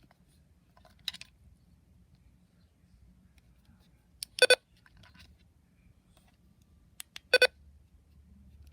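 Keypad beeps from a Midland HH54VP handheld weather radio as its buttons are pressed: two short electronic beeps about three seconds apart, each a quick double, with fainter button clicks between them.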